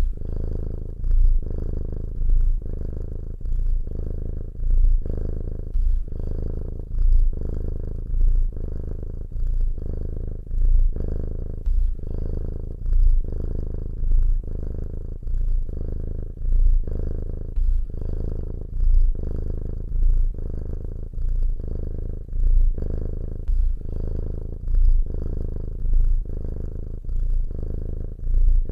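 A cat purring steadily and low. The purr swells louder about every two seconds with each breath.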